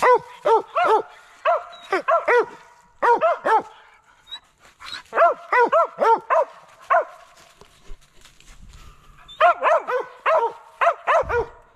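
Mountain cur barking treed at the foot of a tree: quick, sharp barks in bursts of several at a time, with short pauses between bursts. This is the treed bark that tells the hunter a squirrel is up that tree.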